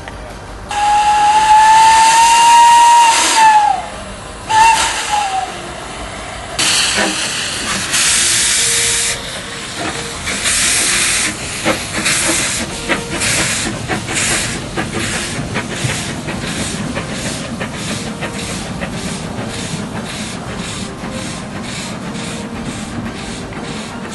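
Henschel 'Fabia'-type narrow-gauge steam locomotive sounding its whistle: one long blast of about three seconds that sags in pitch as it ends, then a short second toot. It then starts off, steam hissing loudly from the open cylinder drain cocks, and its exhaust beats quicken to about two a second.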